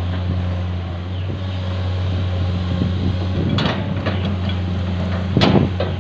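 Heavy diesel engine of construction machinery running steadily with a low hum. Sharp metallic clanks come about three and a half seconds in and again near the end, the second the louder.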